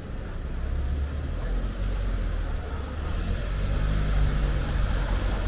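A motor vehicle's engine running close by on a street, its low hum growing louder.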